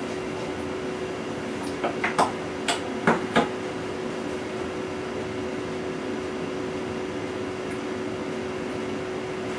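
Class 425 electric multiple unit standing at a platform, its equipment giving a steady electrical hum with two fixed tones. About two seconds in comes a quick run of about six sharp clicks and knocks.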